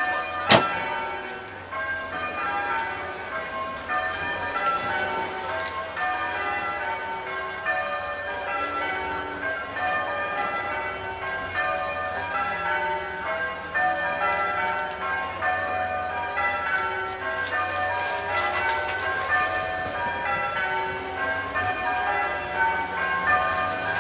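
Bells chiming a continuous, evenly paced run of short ringing notes, with a single sharp click about half a second in.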